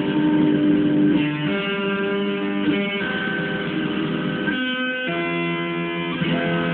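Amplified electric guitar playing a slow run of held chords, changing about every second and a half.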